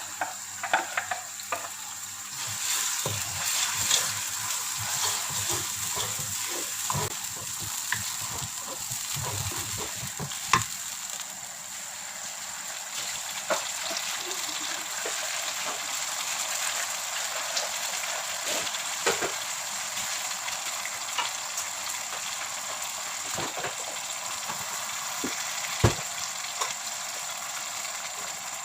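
Blended dried chilli paste sizzling in hot oil in a pan, cooked until the oil separates. A spatula knocks and scrapes against the pan as it is stirred, often in the first ten seconds and now and then after.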